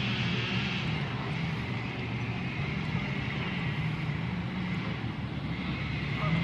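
Steady highway traffic noise: a continuous hum of passing vehicles with a low rumble underneath.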